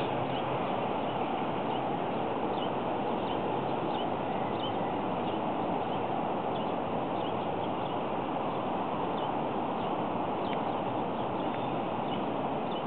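Steady outdoor background noise with short, faint bird chirps scattered through it, about one a second.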